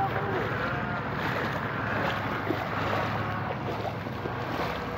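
Floodwater sloshing and splashing as people wade through it, with wind buffeting the microphone and a truck's diesel engine running low and steady underneath.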